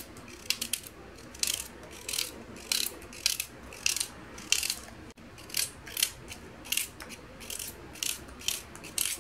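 A knife slicing a raw carrot into rounds while it is held in the hand, each cut a crisp snap, about two to three cuts a second at an uneven pace.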